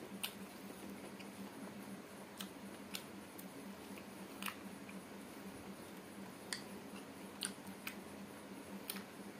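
Fingers mixing rice and meat curry on a plate by hand: faint wet squishing with about ten small sharp clicks scattered irregularly through it.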